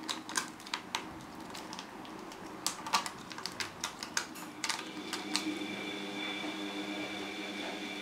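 Kitten's claws scratching and catching on a sisal rope scratching post: quick, irregular scratchy clicks. A steady hum comes in about five seconds in.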